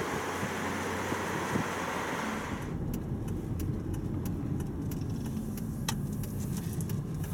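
Car travel noise heard from inside the cabin: steady road and wind rush at speed, which changes abruptly under a third of the way in to a lower tyre and engine rumble at slow speed, with scattered light clicks and rattles.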